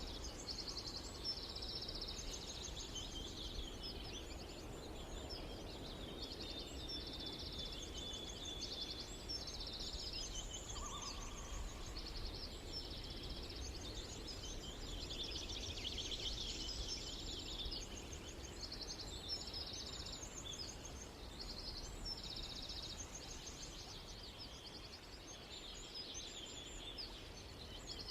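Small songbirds singing: high, buzzy trilled phrases about a second long, repeated and overlapping throughout, over a faint steady background hiss.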